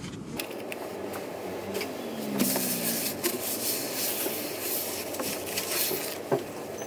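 A paper napkin rubbing and rustling across a tabletop as it wipes it, with scattered light clicks and knocks. The rustling is loudest in the middle.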